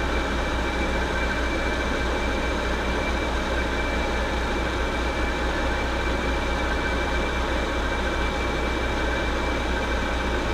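Metal lathe running steadily, with a constant low hum and a thin, high whine over it.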